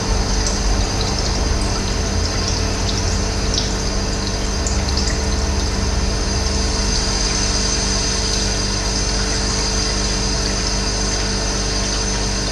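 Running water in a steady rushing flow, with a low hum under it and a few short, faint bird chirps over it in the first half.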